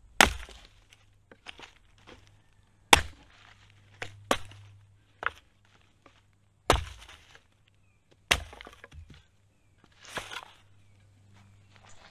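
Dry dead branches cracking and snapping as they are broken up and dropped onto a pile of firewood. There are several sharp snaps a second or two apart, with lighter rustling of twigs between them.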